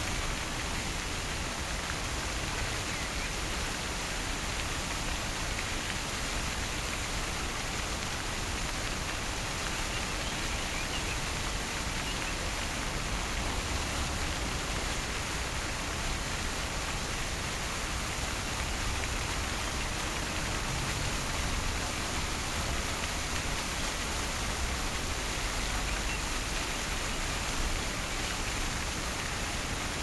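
Water splashing steadily in a fountain, an even rushing sound with no change.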